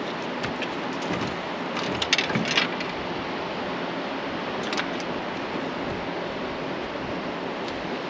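Steady rushing noise of wind and moving river water, with a few light clicks and knocks about two seconds in and again near five seconds.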